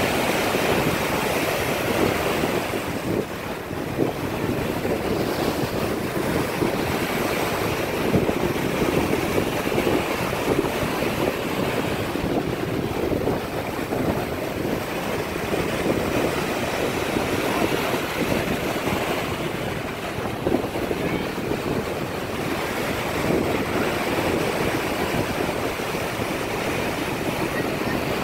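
Ocean surf breaking and washing up a sandy beach in a continuous rush that swells and eases, with wind buffeting the microphone.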